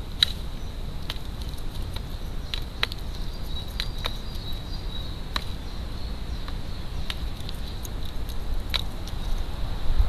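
Crows' beaks pecking dried mealworms from a plastic feeder tray: irregular sharp taps and clicks, roughly one or two a second, over a steady low rumble and a faint steady high whine.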